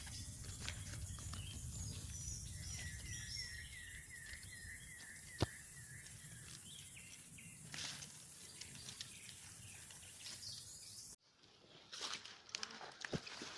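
Faint outdoor ambience with a steady low rumble. A bird calls a quick run of repeated chirping notes, about four a second, for a few seconds, with a single sharp click in the middle. Near the end the background drops out abruptly, leaving scattered soft clicks.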